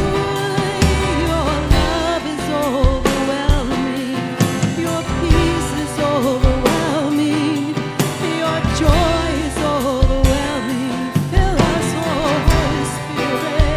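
Worship song: a voice singing a melody over a band with bass, guitar and a steady drum beat.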